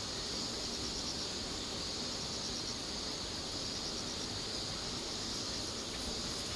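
Insects chirring steadily, a continuous high-pitched buzz.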